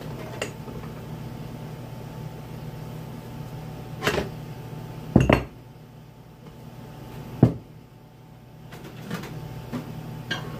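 Sharp metallic knocks and clunks of aluminum bait-mold pieces being handled and set down on a workbench, the loudest a pair about five seconds in, over a steady low hum.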